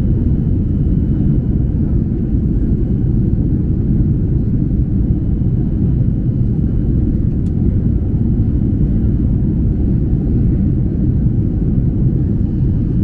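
Steady low rumble of a Boeing 737 airliner's engines and airflow heard from inside the passenger cabin in flight, with a faint steady high whine above it.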